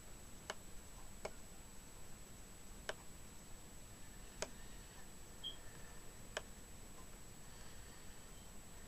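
Five sharp single clicks of a laptop being worked, coming at irregular gaps of one to two seconds, over a quiet room with a faint steady high-pitched whine.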